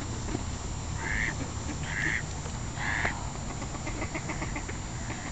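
Ducks quacking: three short calls about a second apart, followed by faint rapid chatter.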